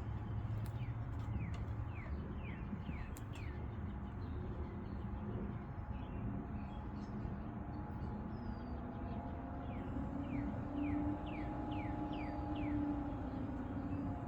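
A small bird chirping in two runs of quick, falling chirps, over a steady low hum.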